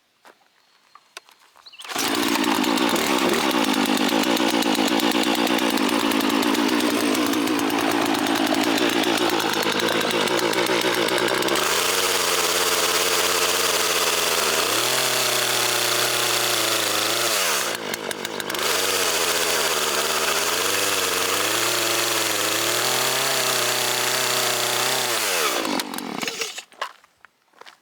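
Poulan Pro PR4218 two-stroke chainsaw cutting wood. About two seconds in it comes up to full throttle and runs hard for over twenty seconds, its pitch sagging and recovering as the chain bites into the wood, then winds down near the end.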